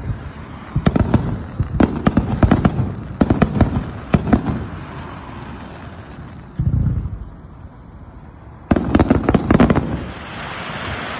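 Fireworks display going off: several clusters of sharp cracks and bangs, a single low boom about seven seconds in, and a steady hiss near the end.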